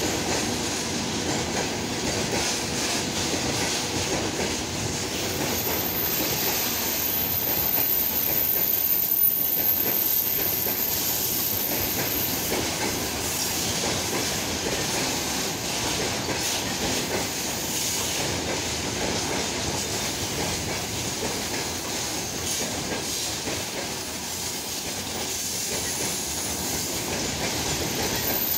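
Open-top freight wagons of a long freight train rolling past on the rails with a steady rumble of wheels. A thin, very high-pitched squeal rides over it from about five to twelve seconds in and again at the very end.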